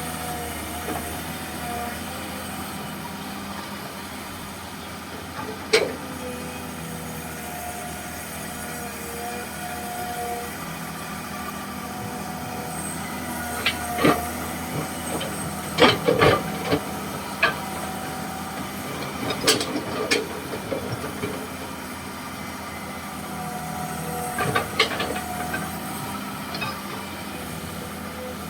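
Komatsu PC200-6 hydraulic excavator running steadily while digging, with tones that come and go over the engine drone and sharp metal knocks, bunched about halfway through and again near the end.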